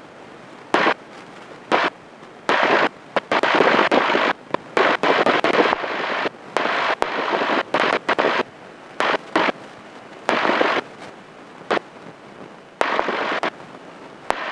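Light airplane's engine and cabin noise heard through the headset intercom, cutting in and out abruptly a dozen or so times with clicks, as the intercom's voice-activated squelch opens and shuts on the noise while taxiing.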